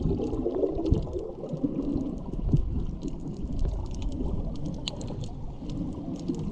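Muffled underwater rumble and swishing of snorkelers' fins and bubbles, recorded by a camera under water, with scattered faint clicks and crackles throughout.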